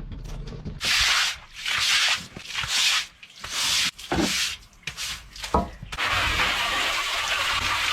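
Water hissing through a drain line in a string of short bursts with a few knocks, then running in a steady rush from about six seconds in.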